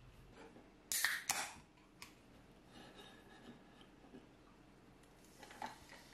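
Ceramic serving tray set down on a table with two loud clacks about a third of a second apart, followed by a few light tableware clicks. Near the end, a canned drink starts pouring into a glass over ice with a short fizzing hiss.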